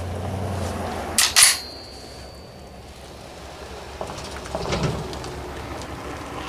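Two sharp metallic clacks in quick succession, with a thin ringing tone hanging on for about a second after. The clacks are typical of an M1A rifle being loaded before its first shot with surplus 7.62x51 NATO ammunition. A weaker knock follows a few seconds later.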